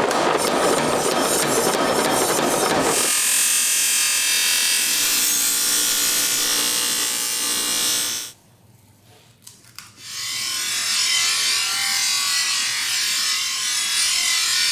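Mechanical power hammer pounding a red-hot steel blade with rapid, continuous strikes, which cut off suddenly about three seconds in. A steady high-pitched hissing noise follows, breaks off into a short near-silence, then resumes.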